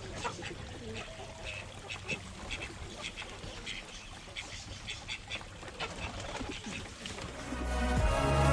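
Domestic ducks quacking on and off in short, scattered calls. Music fades in near the end.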